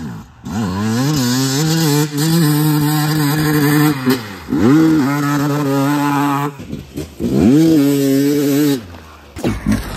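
Sherco two-stroke enduro motorcycle ridden hard through sand corners, its engine revving up and down several times with quick rising blips, then dropping away near the end.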